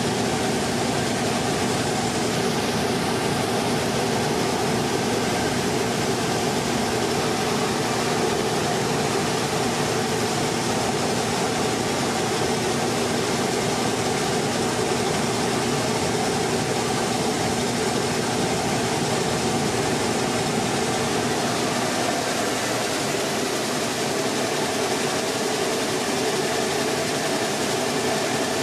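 Mini rice mill (husker and polisher) running steadily: a continuous mechanical hum with several steady tones over a hiss.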